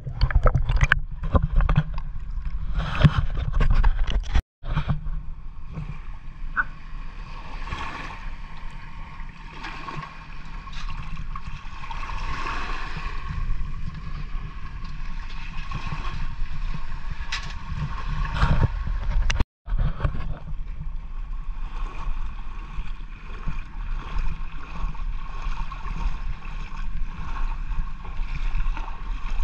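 Muffled water noise picked up by a camera underwater: a steady low rumble with gurgling and scattered knocks, busiest near the start. The sound cuts out completely for an instant twice, at edits.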